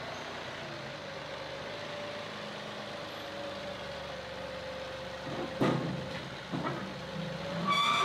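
John Deere 2038R compact tractor's diesel engine running steadily at low speed as it creeps forward. Two sharp clunks come about two-thirds of the way through, and a brief high whine comes near the end.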